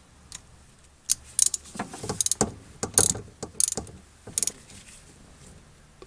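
Ratchet wrench clicking in short, irregular runs for about three and a half seconds, then stopping, as it turns a new spark plug down into the cylinder head on an extension and spark plug socket.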